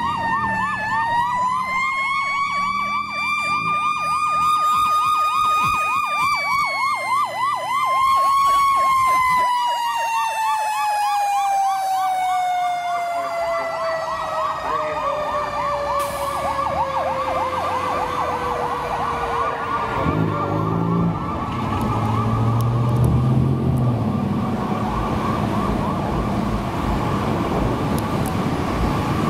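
Fire engine responding with its sirens: a slow wail climbs for several seconds and then falls steadily over about ten seconds, while a fast yelp runs over it. In the last third the wail has died away and the truck's engine rumbles past under the continuing yelp.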